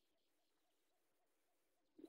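Near silence: faint outdoor ambience with a faint run of short repeated calls, about four or five a second.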